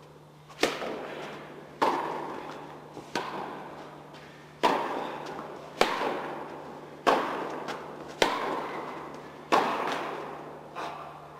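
Tennis ball struck by rackets and bouncing on an indoor court during a rally: about nine sharp pops, roughly one every 1.2 seconds, each echoing through the large hall.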